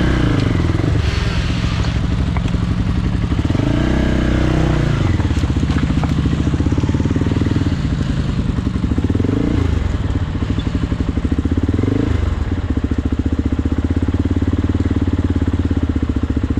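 Off-road vehicle engine running under way, its pitch rising with bursts of throttle several times, around four, nine and twelve seconds in, then settling back.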